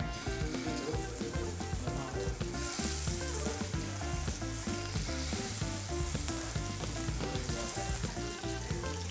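Marinated boneless chicken slices sizzling as they are laid one by one into hot mustard oil in a frying pan; the sizzle grows louder about two and a half seconds in as more pieces go in.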